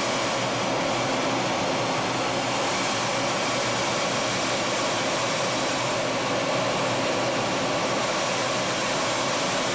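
Steady, even rushing noise of jet engine and airflow heard inside the cockpit of an IAI Kfir fighter in flight.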